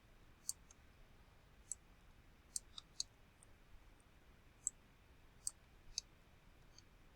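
Faint computer mouse clicks, about ten of them at irregular intervals, with near silence between.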